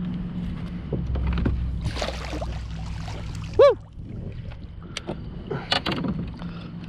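Water splashing and knocking against a fishing kayak as a bass is brought in, over a steady low hum. One short high squeak about three and a half seconds in is the loudest sound.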